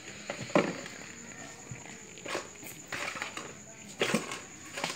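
A few soft knocks and taps on a hard floor, a second or two apart, the first the loudest: a crawling baby's hands and a small toy box touching the floor.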